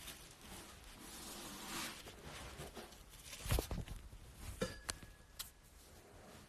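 Handling noise on a phone's microphone: soft rustling, then a few light knocks and clicks about halfway through as the phone is held and moved.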